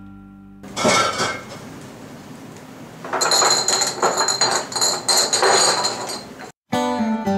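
A sudden clatter a little under a second in, then, from about three seconds in, a few seconds of rapid metallic clinking and ringing, like crockery or cutlery being rattled, that stops abruptly.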